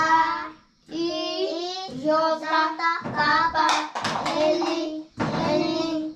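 Young children chanting letters of the alphabet aloud in unison, in a sing-song recitation: about six drawn-out syllables, each held close to a second, with short breaks between them.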